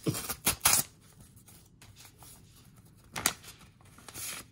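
A paper envelope torn open by hand: three quick rips within the first second, then another rip about three seconds in.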